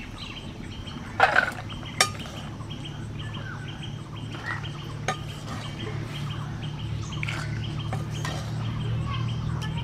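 Boiled yellow peas and potatoes being tipped from a pan into a stainless steel bowl, with sharp metal clinks about two and five seconds in. Birds chirp around it, and a low steady hum grows louder toward the end.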